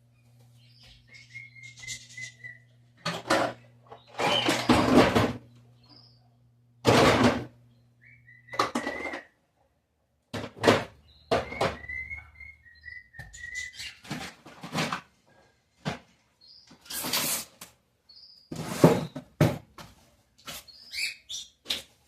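Small birds chirping in short runs, between loud, brief noisy bursts and knocks of household cleaning work. A low steady hum stops about eight seconds in.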